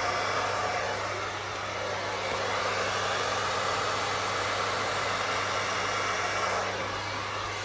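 Handheld hair dryer running steadily, a rush of air over a low hum, blowing out wet acrylic paint in a Dutch pour. Its level dips slightly about a second in and again near the end.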